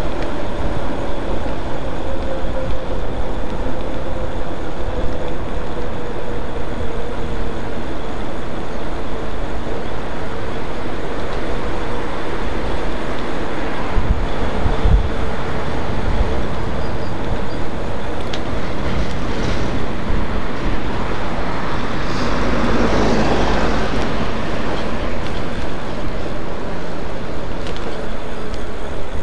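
Wind rushing over the microphone and tyre noise from an electric bike riding along a paved path, with a faint motor whine that slowly drops in pitch. There is a short low knock about halfway through, like a bump in the path.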